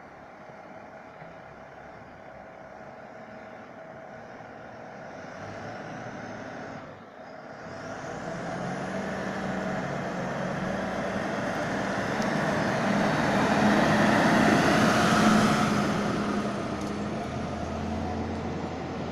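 Fire brigade turntable ladder truck's engine pulling away and driving past, growing louder to a peak about 15 seconds in, then fading as it moves off.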